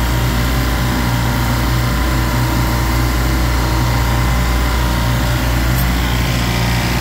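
Steady mechanical drone with a low hum from a commercial refrigeration rack's running compressors and fans.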